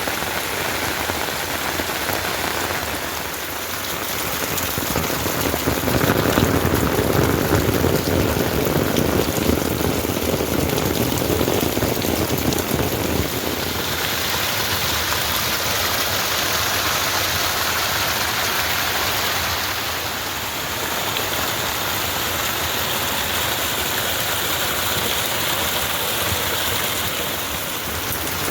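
Heavy rain falling steadily, a dense even hiss. It grows louder and fuller about six seconds in and eases back again about halfway through.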